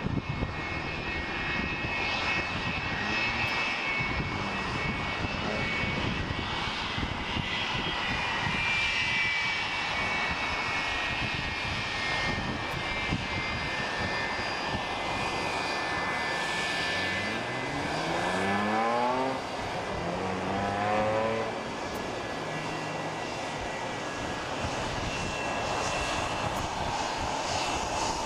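McDonnell Douglas MD-80-series airliner taxiing, its rear-mounted Pratt & Whitney JT8D engines running at low thrust with a steady high whine over a hiss. A brief rising engine note comes in about two-thirds of the way through.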